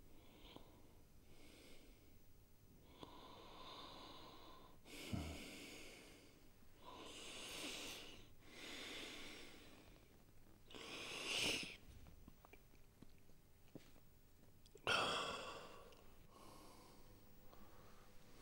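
A person breathing noisily, about seven separate rasping breaths spaced a second or more apart, the sharpest about five seconds in and again near fifteen seconds.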